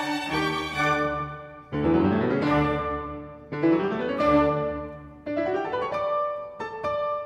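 Instrumental background music, piano with strings, with three sweeping upward runs of notes about two seconds apart.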